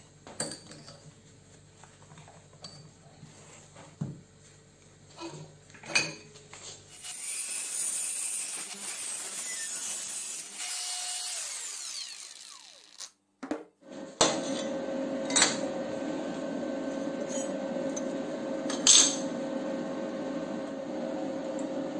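Metal clinks and knocks as a steel strip is clamped in a bench vise. About seven seconds in, a cordless angle grinder with a cut-off disc cuts through the steel in a high, even hiss for about six seconds, then stops. From about fourteen seconds there is a steady hum with one constant tone and a few sharp metal knocks as the cut steel pieces are handled.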